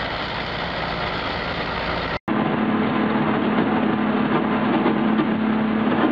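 Heavy off-road vehicle engine running under load. After a brief cut about two seconds in, it becomes a steady engine drone with a low hum, heard from aboard the moving vehicle.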